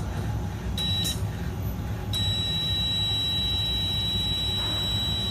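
Electronic beeper on an automated dispensing machine, sounding a high steady tone. There is a short beep about a second in, then a long unbroken beep from about two seconds in. Each beep ends with a brief hiss, over a constant low machine hum.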